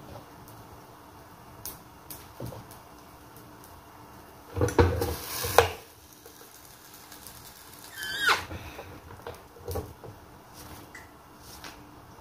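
Electric roti maker's hinged metal lid clattering as it is brought down and pressed onto dough balls, with a loud run of knocks and rattles near the middle. A short falling squeal follows a couple of seconds later, among scattered light taps of dough handling.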